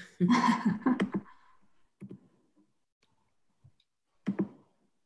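A few separate sharp clicks and light knocks at a computer desk, the loudest about four seconds in, after a brief stretch of voice at the start.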